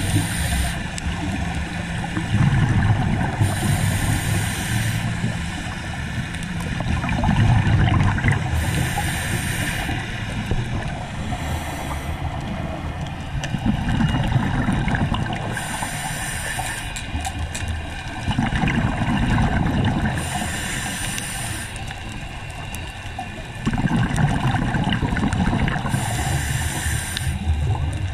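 A scuba diver breathing through a regulator underwater, heard through a camera housing: surges of low bubbling alternate with short bursts of hiss, one breath about every five to six seconds.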